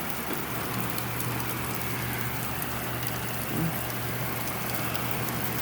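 Heavy thunderstorm rain pouring down steadily, with a low steady hum underneath from about half a second in.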